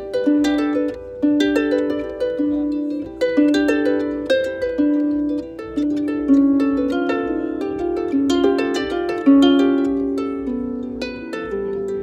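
Small wooden harp played by hand: a low plucked note repeating about once a second under a melody of plucked notes on the higher strings, each note ringing and dying away.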